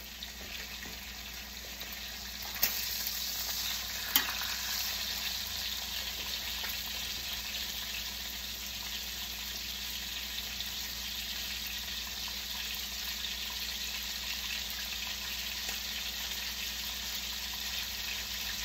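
Two steaks sizzling in hot oil in a frying pan, both freshly flipped: a steady sizzle that grows louder a little under three seconds in. Two sharp clicks stand out near the start.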